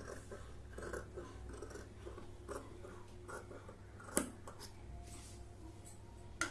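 Scissors cutting through cloth in a run of soft, quiet snips as a garment armhole is trimmed, with one sharper click a little past the middle.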